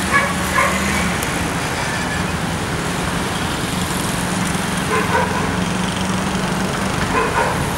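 Steady city street noise, a constant hum and hiss with no single clear source, and a few brief voices in the distance.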